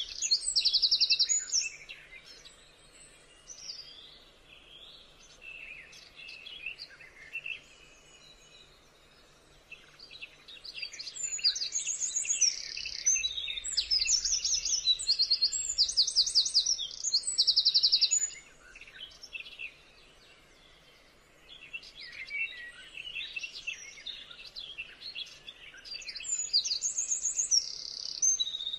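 High-pitched bird-like chirping and rapid trills. They come in three bouts: a short one at the start, a long one from about eleven to eighteen seconds in, and another near the end, with quieter gaps between.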